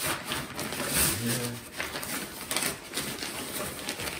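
Black nylon fabric of a cover and its stuff sack rustling and crinkling as it is handled and pulled open, with a brief low hum about a second in.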